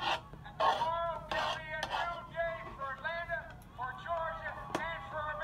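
Speech played through a small speaker, thin and tinny, with a few sharp clicks over it, the sharpest near the end.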